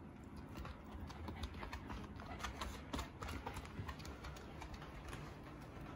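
Irregular light clicks and taps of a Shiba Inu's claws on the floor as it moves about.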